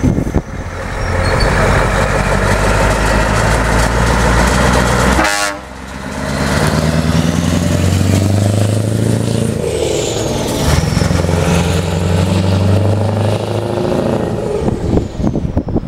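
Scania 143 420's 14-litre V8 diesel running on an open exhaust pipe, loud and deep as the truck pulls away and accelerates, its note rising and falling with the gear changes. The sound breaks off abruptly about five seconds in and picks up again.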